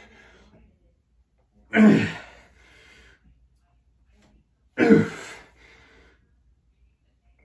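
A man breathing out hard on each repetition of resistance-band bent-over rows: three sharp, forceful exhales about three seconds apart.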